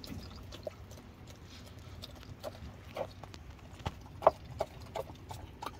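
Young Jindo puppies and their mother shifting about on a vinyl mat: irregular soft clicks and taps of paws and claws, one sharper tap about four seconds in.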